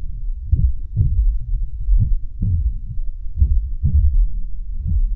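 Low heartbeat-style thumping in a film soundtrack, a steady beat of about two thumps a second.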